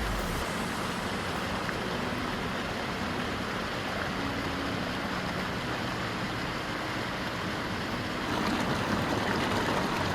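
Waterfall rushing: a steady, dense roar of falling water heard from close by, a little louder near the end.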